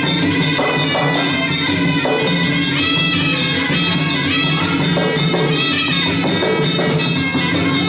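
Traditional Khmer boxing ring music playing continuously: a sustained melody over steady drum and percussion strokes.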